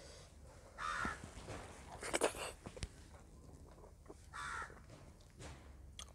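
A crow cawing twice, a few seconds apart, each a short harsh call. Between the caws comes a brief sharp smacking mouth noise from eating.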